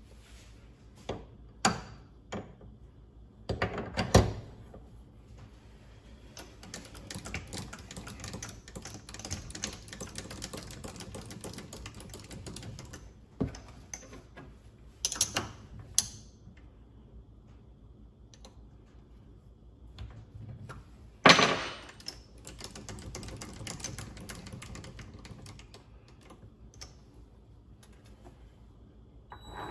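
Metal parts and tools being handled at a stopped mini lathe, as the workpiece is taken out of the chuck and turned around: scattered clicks, taps and clanks with soft scraping in between, the loudest clank about 21 seconds in.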